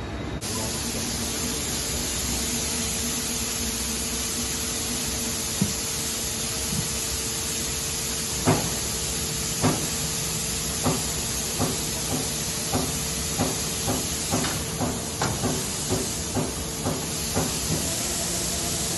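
Webster & Bennett CNC vertical turret lathe running with a steady hiss and hum. A repeated knock begins partway through and comes faster and faster, from about one a second to about two a second.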